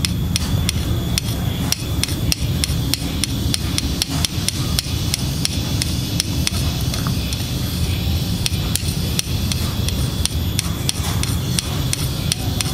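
Citrus juice and sweet soy sauce being stirred with a utensil in a small vessel: rapid, repeated clinks of the utensil against the vessel, several a second.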